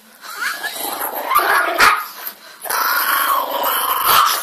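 Small toy dog growling over its plate of pasta as a hand comes near: food guarding. Two long growls with a short break between them about two and a half seconds in.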